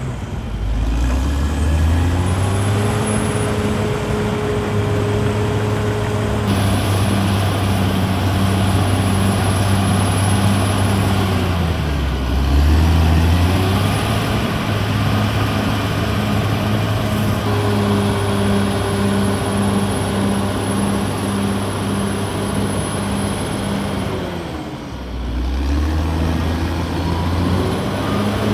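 Caterpillar D6R XL bulldozer's diesel engine running hard at high revs. It drops to a lower pitch about halfway through and again near the end, revving back up each time, with a thin high whine over it.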